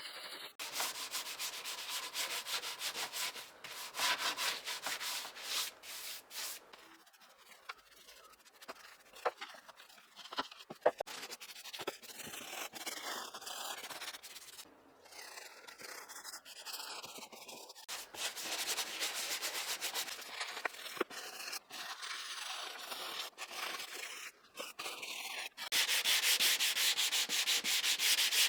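Hand sanding or rubbing on the ice box's parts: rapid back-and-forth scratchy strokes, in several short stretches with abrupt changes between them, loudest near the end.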